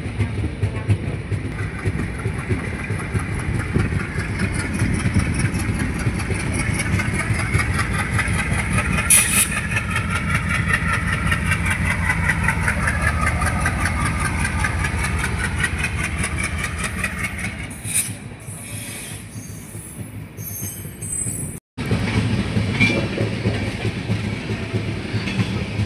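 Passenger train running at speed: wheels clattering rapidly over the rail joints over a steady rumble. The clatter thins out toward the end and cuts off abruptly for a moment before resuming.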